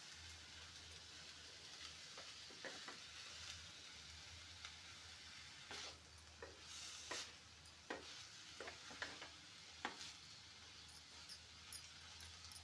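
Faint sizzling of chopped vegetables stir-frying in a stainless-steel kadai. A wooden spatula scrapes and knocks against the pan at irregular moments as the vegetables are turned.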